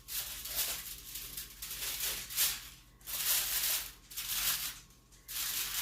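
Knife sawing through a loaf of garlic bread, a run of scratchy, rustling strokes about one a second.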